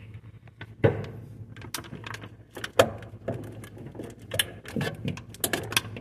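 Plastic clicks and knocks as a GE SmartWater refrigerator water filter cartridge is gripped and twisted in its housing to unscrew it for replacement. There are several sharp clicks spread over the few seconds, over a steady low hum.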